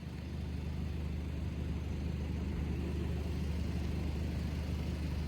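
Steady low rumble with an even hiss above it.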